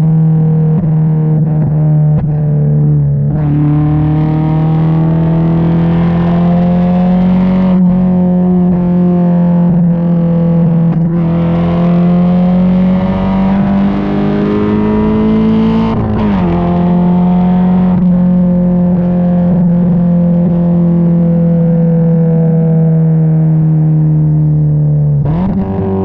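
Mazda MX-5 inline-four engine droning loudly through a baffle-less exhaust while driving. The pitch climbs slowly, drops sharply at a gear change about halfway through, then eases down and dips again near the end.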